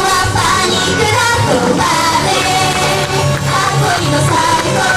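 Japanese idol pop song performed live: young women singing together into microphones over upbeat backing music with a steady beat.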